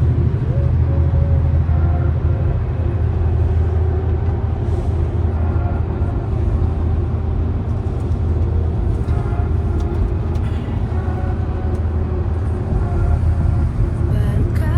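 Steady, loud low rumble of a vehicle in motion.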